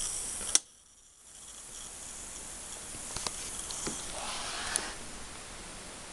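Handling sounds on a workbench: a sharp click, a brief drop to near silence, then faint hiss with a few light ticks and knocks as the motorcycle engine cylinder is moved about and set on wooden blocks.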